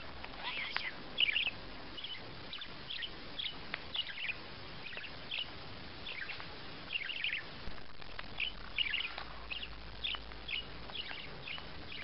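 White parakeet chirping: many short, high chirps, some in quick runs of several, throughout.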